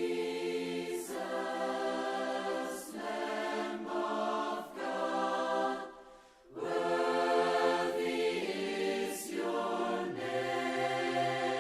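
A choir singing slow, held chords in long phrases, with a short break about six seconds in.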